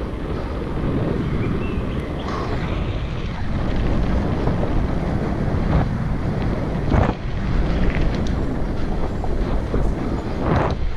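Wind buffeting the microphone of a mountain bike's camera while riding, over tyre noise rolling on pavement and then on a gravel path. A few short clatters from the bike over bumps come about six, seven, eight and ten seconds in.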